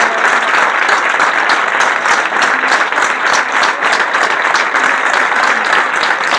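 A crowd of people clapping in steady, sustained applause, many overlapping hand claps with no let-up.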